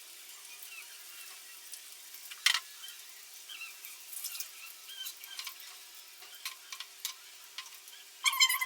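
Batter- and breadcrumb-coated onion rings deep-frying in hot oil: a faint sizzle with scattered small crackles, and one sharp click about two and a half seconds in. A pitched sound starts near the end.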